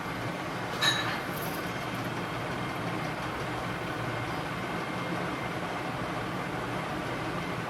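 Quick 857DW+ hot air rework station blowing steadily at 380 °C, reflowing a reballed audio IC onto a phone's circuit board. A short sharp click about a second in.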